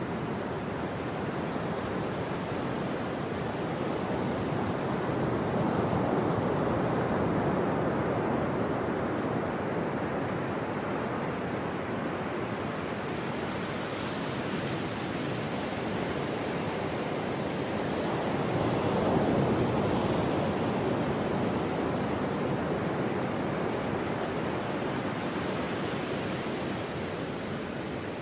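Ocean surf breaking and washing in: a steady rushing noise that swells and fades several times, loudest about nineteen seconds in.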